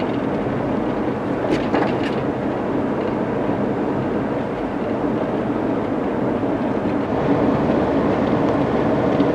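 Steady road and engine noise inside a moving car's cabin, with a couple of faint clicks about one and a half seconds in.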